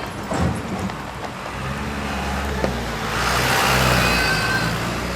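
Heavy fire-service truck's engine running steadily, with a broad rush of noise that swells about three seconds in and eases off toward the end.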